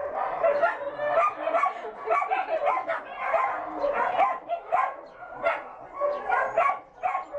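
Dogs barking and yipping, many short calls overlapping without a break.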